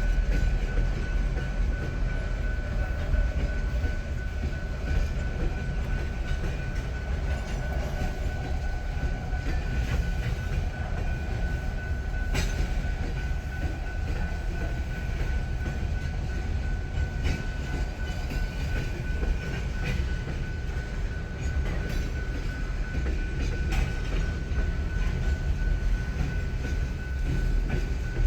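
Freight cars of a Union Pacific local train rolling past with a steady low rumble, wheels clacking now and then over the rail joints. A thin steady high tone runs under it throughout.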